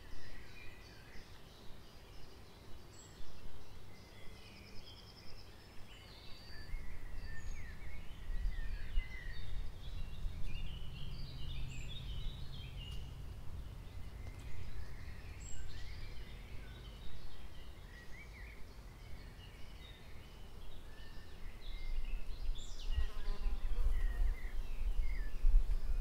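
Outdoor woodland ambience: several birds chirping and singing in short scattered phrases, over a low rumble that swells about a third of the way in and again near the end.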